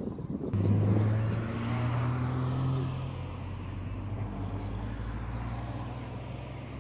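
A steady low engine hum that comes in about half a second in, is loudest just after, and slowly fades.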